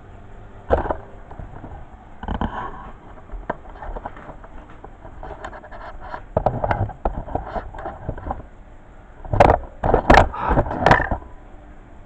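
Knocks, scrapes and clatters of a tumble dryer's condenser unit being handled and set down on a stainless steel sink draining board, with a louder cluster of clatters near the end.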